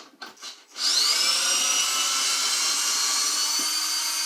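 Power drill with a socket backing out a 6-inch lag bolt: a few light clicks, then the motor spins up with a rising whine about a second in and runs steadily.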